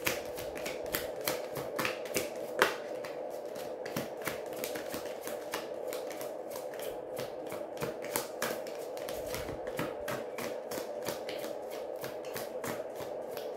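Tarot deck being shuffled by hand: a steady run of quick, irregular card snaps and slides, several a second, over a faint steady hum.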